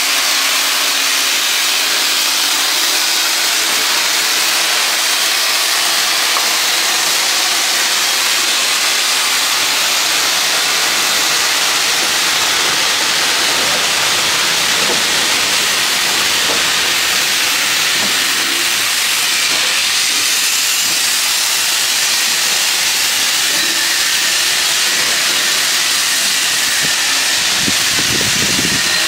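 Steam locomotive hissing loudly and steadily as it vents steam while moving slowly past at close range. A faint low tone sits under the hiss for the first several seconds.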